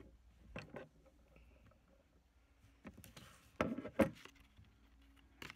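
Scattered knocks and taps of hands and objects handled on a wooden tabletop, with a brief rustle about three seconds in and the loudest cluster of knocks just after it.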